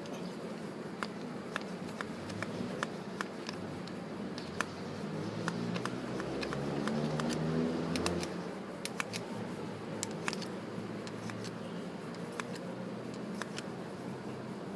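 Small sharp clicks and taps of metal parts being handled on a motorcycle's front brake piston assembly. Underneath is a low steady hum that grows louder in the middle and then falls back.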